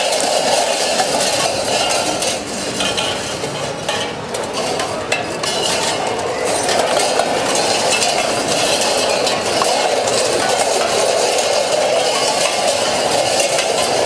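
Metal tin cans hung on costumes clinking and rattling against one another, a dense unbroken jangle as the wearers move and handle the cans.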